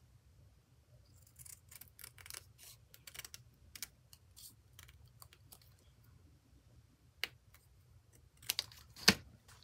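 Scissors snipping around a piece of thin candy-box cardboard: a scatter of light clicks and snips, with two louder sharp snips near the end.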